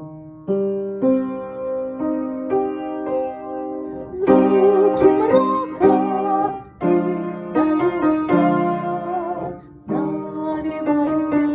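Electric piano playing a slow tune in held chords. About four seconds in, a higher melody line with a wavering pitch joins above it.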